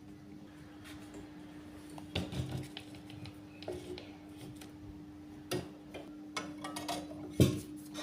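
A few irregular sharp clicks and knocks of hard objects being handled, the loudest near the end, over a steady low hum.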